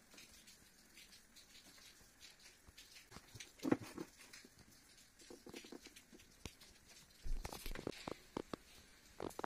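Handling noise: light taps, scrapes and clicks as a table-clamp phone stand and the phone are handled. There is a louder knock a little under four seconds in, and a denser run of knocks and rustling from about seven seconds in.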